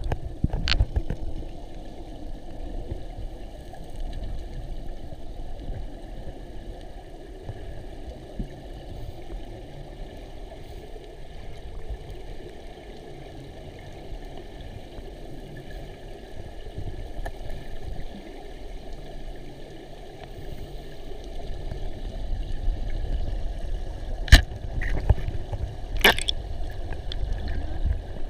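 Steady low rushing and gurgling of river water, with a sharp knock about a second in and two more near the end.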